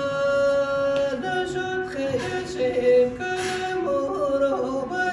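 A voice singing a slow melody into a microphone, holding a long note at the start and then moving through gliding, drawn-out notes.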